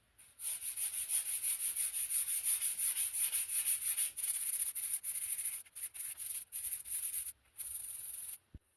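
120-grit sandpaper rubbed by hand over a wooden rolling pin in quick back-and-forth strokes, a steady scratchy hiss. It stops briefly a few times near the end.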